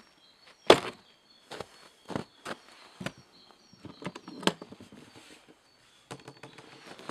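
Wooden chainsaw carrying case being set down on icy snow and opened: a string of separate knocks, clicks and crunching steps from the case, its latch and lid, and boots on the frozen ground. The loudest knock comes about a second in.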